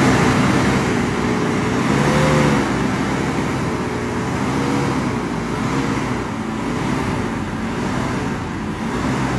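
Rear-wheel-drive car's engine revving up and down again and again over a loud rush of noise as it tries to climb a muddy slope and fails. The heavy front and light rear, driven only at the rear, leave it without the traction to get up.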